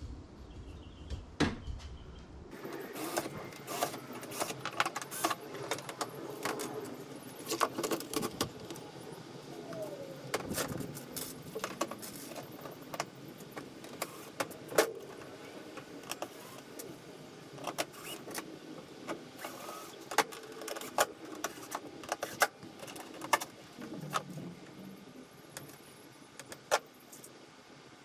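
Irregular clicks, taps and rattles of small parts and wire being handled while speakers and speaker wiring are fitted into a boat console. The background changes abruptly about two and a half seconds in.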